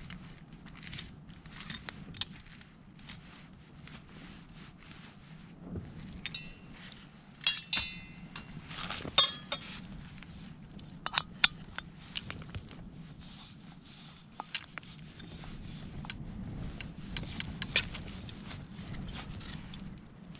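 Small metal objects clinking and rattling as they are handled, with a few brighter ringing clinks about six to eight seconds in.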